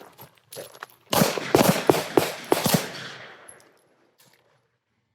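A quick string of about six pistol shots fired in under two seconds, with an echo trailing off afterwards.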